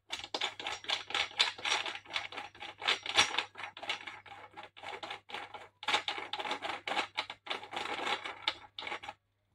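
Threaded steel locking screw being turned by hand into the top of a Dongcheng DZZ02-130 diamond core drill stand, locking the drill carriage: a dense run of fast, irregular metallic clicks and scrapes that stops just before the end.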